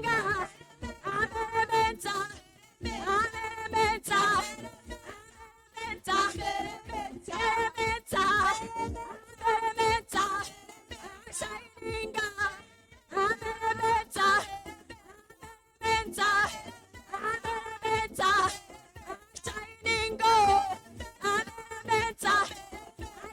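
Praise and worship singing with music, the voices rising and falling in sung phrases.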